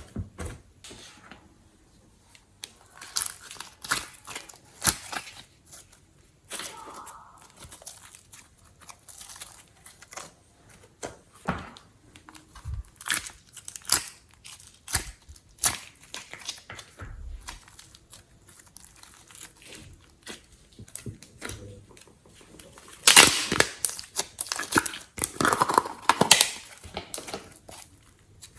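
Slime being squeezed, stretched and folded by hand: irregular crackling and clicking pops of trapped air, with a louder, denser run of crackles about 23 seconds in.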